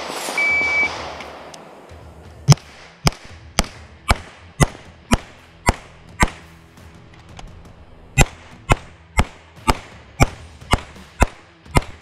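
Shot-timer start beep, then sixteen pistol shots from a CZ 75 TS Czechmate: two strings of eight at about two shots a second, with a pause of about two seconds between them.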